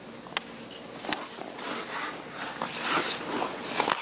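Hockey skate blades scraping and hissing across rink ice as a goaltender pushes across the crease, growing louder after the first second or so. Sharp clacks of sticks and pucks on the ice come through it, the loudest near the end.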